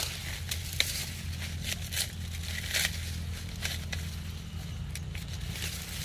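Dry corn leaves and husks crackling and crumpling in irregular snaps, over a steady low rumble.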